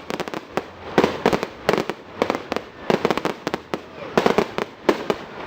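Fireworks going off: a dense, irregular run of bangs and crackles, several a second.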